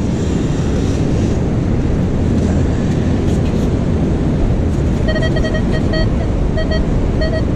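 Steady wind and surf noise on the microphone. About five seconds in, a metal detector starts sounding short repeated beeps of one pitch, signalling a buried metal target.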